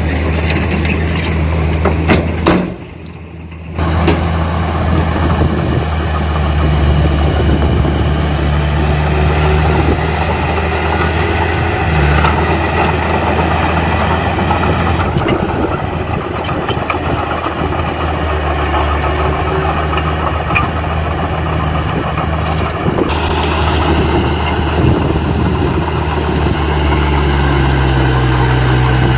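Heavy diesel engines of earthmoving machinery running steadily, with a steady low engine drone throughout. The sound cuts out briefly about three seconds in.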